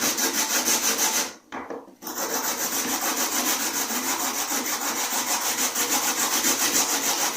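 Carrot being grated by hand on a grater: quick, even rasping strokes, with a short pause about a second and a half in before the grating resumes.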